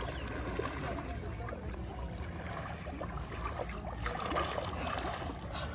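Lake water sloshing and trickling around a person wading in, her legs and dipping hands stirring the water, over a low steady rumble.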